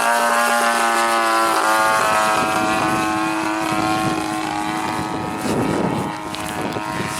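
30cc gas two-stroke engine of an RC airplane running in flight, a steady propeller drone whose pitch drifts slowly up and down.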